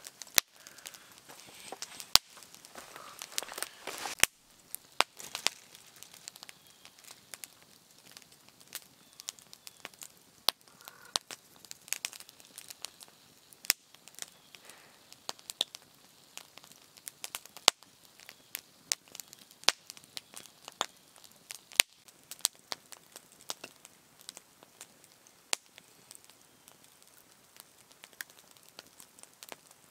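Open wood campfire crackling, with irregular sharp pops throughout.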